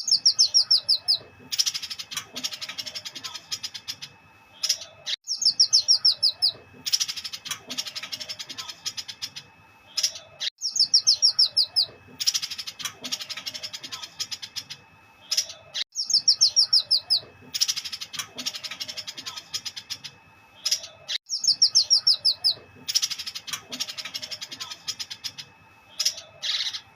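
Cucak cungkok singing: fast runs of sharp, high, falling chirps, each followed by a denser burst of harsh calls, the phrase repeating about every five seconds.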